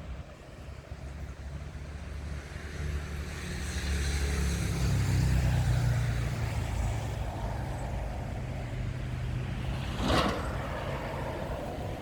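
A motor vehicle's engine hum, growing louder about four to six seconds in as it passes and then easing off, with a short sharp noise about ten seconds in.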